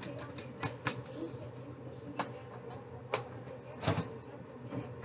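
Kitchen handling noise: irregular sharp clicks and light taps, as of a plastic tub and utensils being handled and set down, over a low steady hum.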